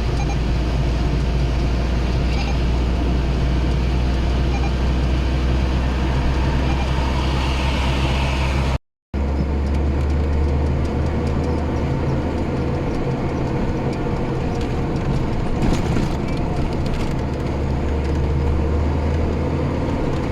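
GAZelle light truck on the move: steady engine drone with road noise. The sound breaks off for an instant about nine seconds in, then carries on the same.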